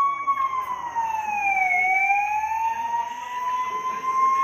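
Ambulance siren wailing: one steady tone that slides down in pitch over about two seconds, then climbs slowly back up.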